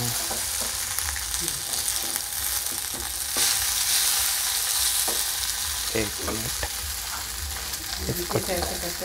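Soaked poha and fried peanuts sizzling in hot oil in a kadhai while a wooden spatula stirs them, with scattered light knocks and scrapes of the spatula against the pan. The sizzle swells for a second or two a little over three seconds in.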